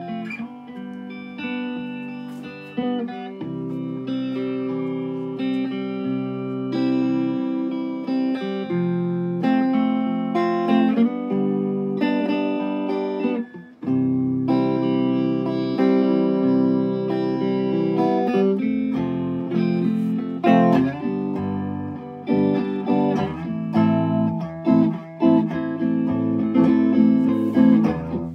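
Electric guitar played clean through a Fender Deluxe Reverb tube amp, sustained chords and picked notes, with a brief pause about halfway through. The amp has been freshly retubed with new power tubes and biased, and it is being played to test its tone.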